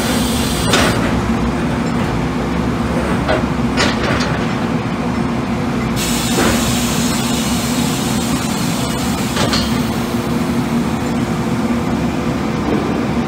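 Steady industrial machinery hum with a few short metallic knocks as a steel gas cylinder rolls across the cylinder blaster's rollers and is stood upright.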